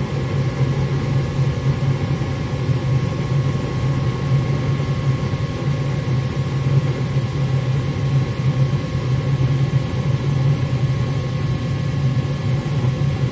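Gas furnace running steadily with its burners lit and its motor humming, a constant hum over an airy rush. The burners stay lit, a sign that the freshly cleaned flame sensor is now proving the flame.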